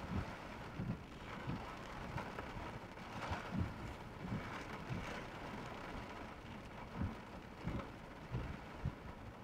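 Heavy rain falling on a car: a steady hiss of rain with irregular low thuds, louder for a while a few seconds in.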